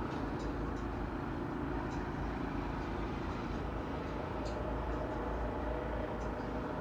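Steady low rumbling background noise, with a few faint light ticks.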